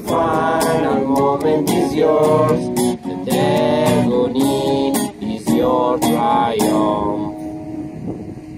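Voices singing together over a strummed acoustic guitar. About seven seconds in the singing stops, and the last guitar strum rings out and fades.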